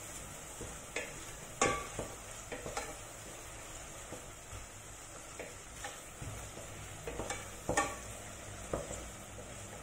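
Wooden spoon stirring chopped onion in a stainless steel pot, scraping and knocking against the pot now and then, the sharpest knocks near the start and near the end. Under it, a faint steady sizzle of the onion frying in fat.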